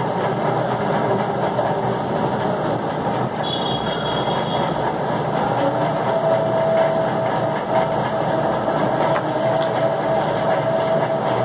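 Steady mechanical drone, like a motor running, with a faint thin whine joining about halfway through.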